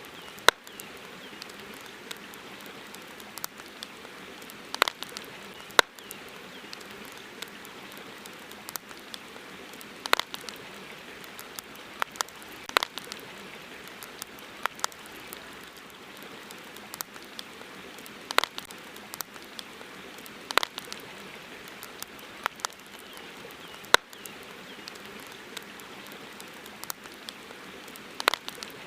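Wood campfire crackling: irregular sharp pops and snaps, a few of them loud, over a steady hiss.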